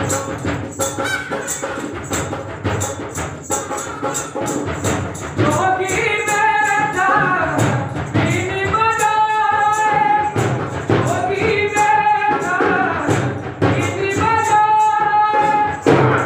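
Recorded folk music for a puppet snake-charmer act. Steady, fast jingling percussion plays throughout. About five and a half seconds in, a wavering snake-charmer's pungi melody joins it and repeats its phrase four times.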